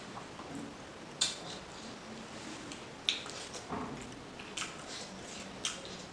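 Close-up eating sounds from eating fish curry and rice by hand: about five sharp, irregular wet smacks and clicks, the loudest about a second in.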